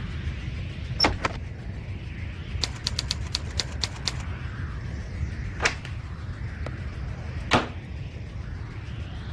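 Sharp clicks and taps over a low steady hum: two clicks about a second in, then a quick run of about nine clicks, then two single knocks further apart, the last one the loudest.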